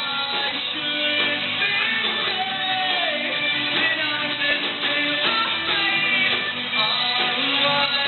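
Rock band playing a song: guitar and singing over a steady full band, loud throughout.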